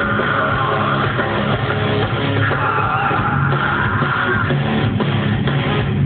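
Live band playing rock music on stage, guitars over drums, heard from out in the hall. The sound is dull, with no treble, and the drum hits stand out more near the end.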